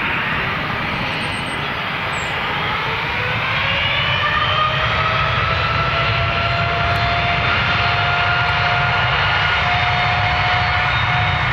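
Boeing 787 airliner's Rolls-Royce Trent 1000 turbofans running at taxi power as it turns onto the runway: a steady jet rumble with a whine that rises in pitch a few seconds in and then holds steady, growing a little louder.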